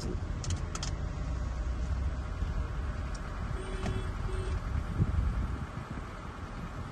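Wind buffeting the microphone, heard as a low, uneven rumble. Two short low tones like a distant hoot come about four seconds in.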